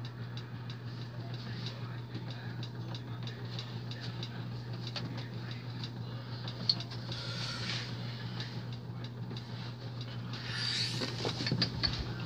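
A steady low hum with scattered faint clicks. Clothing and handling rustles come about seven seconds in and again near the end as a person moves close by, with one sharp click just before the first rustle.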